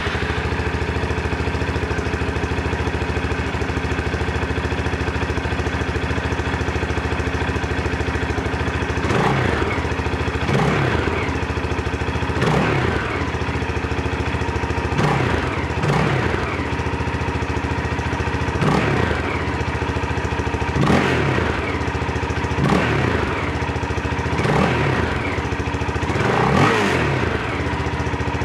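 KTM 640 Adventure's single-cylinder LC4 engine idling through its stock Supertrapp silencer. About a third of the way in, the throttle is blipped repeatedly, about every two seconds, each rev rising and falling in pitch.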